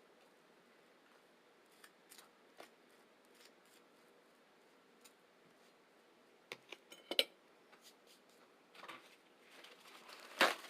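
Close-miked eating sounds at a meal of pancakes, eggs and fruit: quiet, scattered sharp clicks and crunches of chewing and utensils. A cluster comes about two-thirds of the way through, and the loudest crunch comes near the end.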